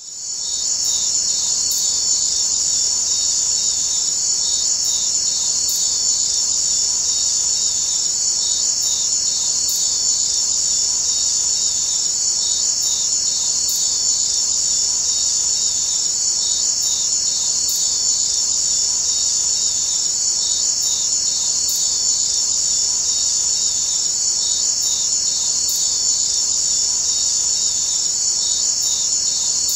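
Crickets chirping in a dense, unbroken, high-pitched chorus, with a faint pattern that repeats about every four seconds.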